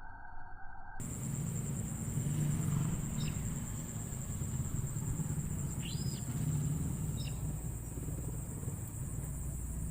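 Steady high-pitched insect chorus, crickets or similar, over a low rumble, with a few short chirps about three, six and seven seconds in. The first second is a different, muffled sound that cuts off abruptly.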